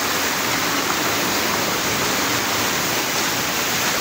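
Mountain spring water cascading over boulders and smooth rock slabs in small falls: a steady rush of water.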